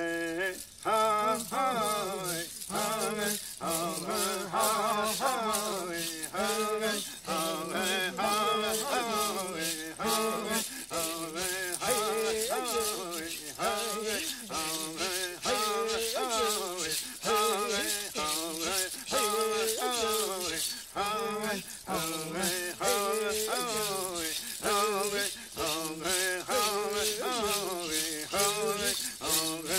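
Traditional Tolowa Dee-ni' song: a voice sings short phrases that waver up and down in pitch, over a steadily shaken rattle.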